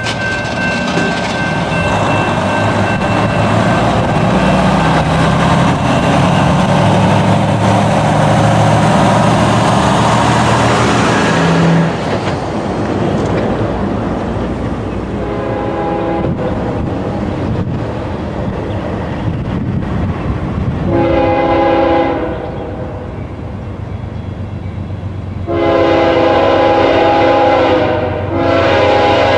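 CSX ES40DC locomotive's Nathan K5HL five-chime air horn blowing a chord in blasts as the train approaches a grade crossing: a faint long blast about fifteen seconds in, a short one, then two louder long blasts near the end. Before the horn, for about the first twelve seconds, a steady rumbling, rushing noise that then drops away.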